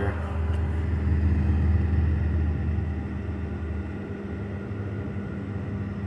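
R-134a refrigerant hissing as it flows through the evaporator of a freshly recharged Whirlpool refrigerator, over a steady low hum and rumble that eases about four seconds in. The refrigerant circulating is the sign that the cooling system is working again.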